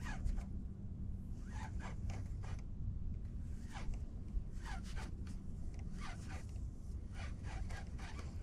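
Spinning reel cranked in short spurts as a lure is worked, with brief raspy strokes in irregular clusters over a low steady rumble.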